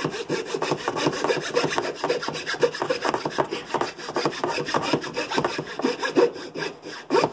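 Coping saw cutting through a pine wood block in quick back-and-forth rasping strokes.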